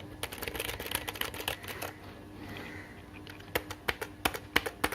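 Redgear Grim gaming keyboard keys being pressed in quick succession, a steady clatter of key clicks that turns sharper and louder about three and a half seconds in.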